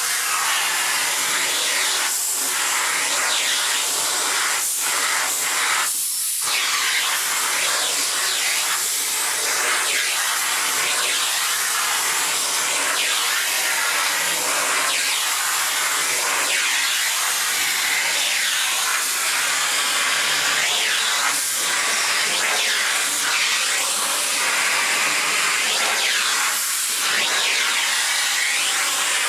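Vacuum cleaner running, its suction hissing steadily through the hose as the brush nozzle is drawn over a cat's fur on carpet. The pitch of the airflow glides up and down as the nozzle moves, with a brief dip about six seconds in.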